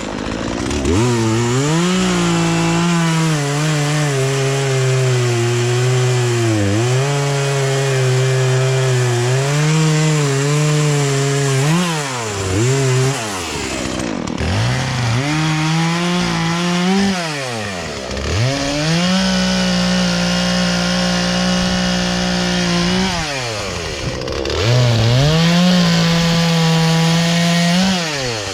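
Poulan Pro two-stroke chainsaw, its carburettor freshly adjusted, revving and cutting logs: the engine pitch holds high and sags slightly under load, then falls back toward idle several times before revving up again for the next cut.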